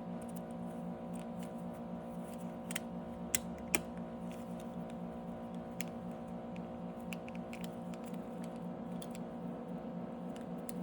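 Light clicks and taps of small plastic and metal mount parts being handled and fitted together, over a steady low hum. Two sharper clicks come close together a little past three seconds in.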